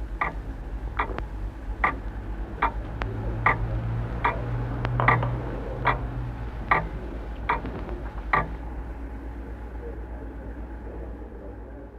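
A clock ticking slowly and evenly, about one tick every 0.8 seconds, over a low steady hum. The ticking stops about eight and a half seconds in.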